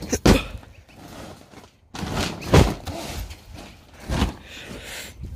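Heavy thumps on a trampoline mat as a giant woven-plastic packing pillow is knocked about: three hard thuds roughly one and a half to two seconds apart, with rustling and scraping between them.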